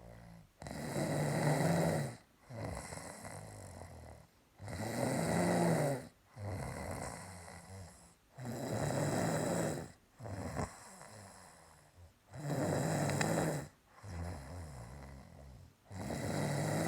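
Snoring in a steady rhythm: a loud snore about every four seconds, five in all, each followed by a quieter breath.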